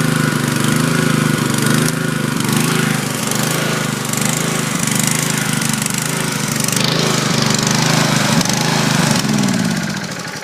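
Stephill generator's Honda GX160 single-cylinder four-stroke engine running steadily at working speed, then slowing down and winding down in the last second or so.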